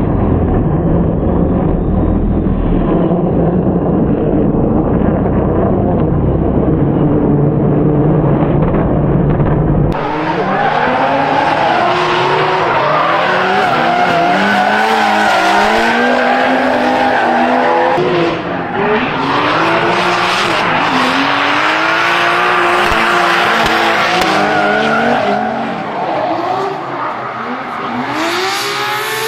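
Drift car engines revving hard, rising and falling again and again, with tyres squealing as the cars slide. For the first ten seconds the engine sound is muffled and dull. It then cuts to a clear, fuller sound of the revving and tyre noise.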